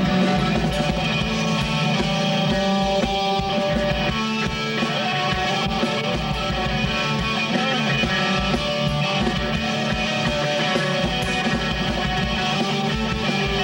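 Live rock band playing: an electric guitar over a drum kit, steady and loud with a regular driving beat.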